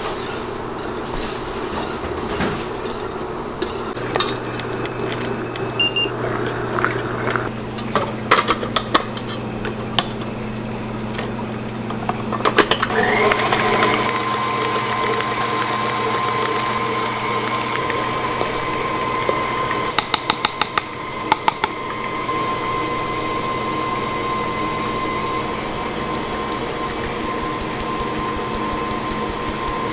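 A wire whisk clicking against a stainless steel bowl as eggs and sugar are beaten by hand. About twelve seconds in, a stand mixer starts with a rising whine and then runs steadily, whipping the eggs at high speed.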